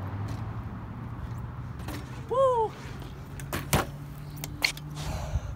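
BMX bike riding on a concrete skate-park bowl during a 540 attempt, its tyres rolling steadily, with sharp knocks about three and a half and four and a half seconds in as the bike comes down on the concrete. A short rising-then-falling call, the loudest sound, comes near the middle.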